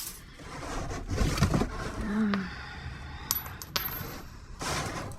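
Scrap metal clinking and clattering as it is handled, with a sharp clink at the start and a few bright metallic strikes that ring high about three seconds in.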